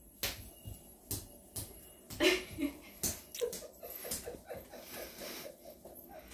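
Baby's hands slapping a laminate floor while crawling, a knock roughly every half second, with short vocal sounds about two seconds in and a quick run of short repeated vocal sounds after that.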